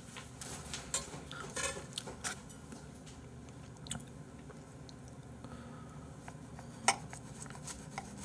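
Chewing, with small clicks of a metal knife and fork against a plate as salmon is cut; one louder clink about seven seconds in.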